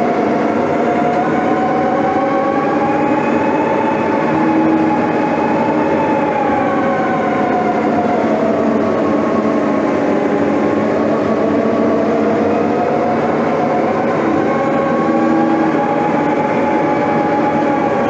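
Heavy-equipment diesel engine working under load, its pitch slowly rising and falling as it pulls through a pass.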